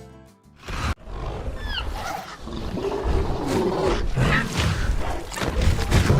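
Dinosaur roars and growls, a film-style sound effect, starting about half a second in, with a few short high chirps near two seconds in.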